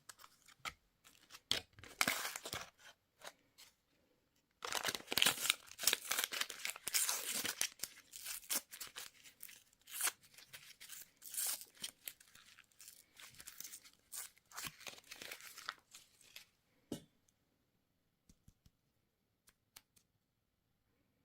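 Candy wrapper being torn open and crinkled by hand, in scattered crackles at first, then a loud spell of tearing about five seconds in. It thins to intermittent crinkles and stops about five seconds before the end, leaving a few faint clicks.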